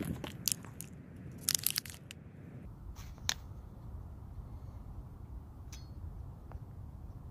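Hard plastic clicking and crunching as small parts are handled: a cluster of sharp clicks and crackles in the first two seconds, one more click a little after three seconds, then only faint background.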